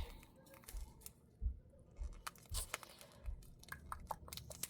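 Plastic packaging crinkling and crackling as it is handled, in faint, irregular clicks.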